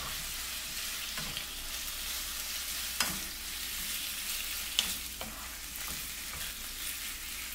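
Strips of boneless chicken thigh sizzling steadily in hot olive oil in a pan as they brown, with a few sharp clicks about three and five seconds in.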